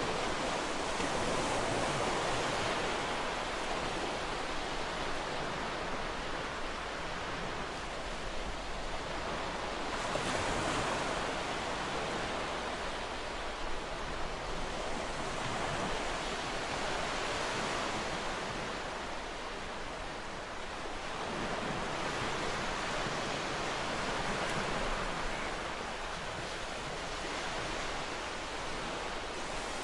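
Ocean surf: a steady wash of waves that swells and ebbs every several seconds.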